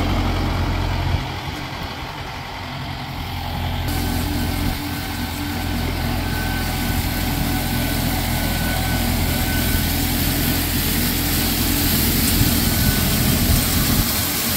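Kubota M4D-071 tractor's four-cylinder diesel idling steadily at about 1000 rpm while its loader-mounted hydraulic rotary broom spins, the bristles sweeping and flinging gravel. The hiss of scattering gravel builds from about four seconds in.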